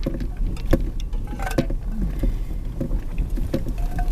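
Car running, heard from inside the cabin as a steady low rumble, with a few scattered clicks and knocks.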